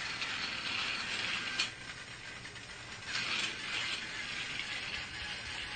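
A small geared mechanism whirring and clicking, with a sharp click about a second and a half in and a second swell of whirring about three seconds in.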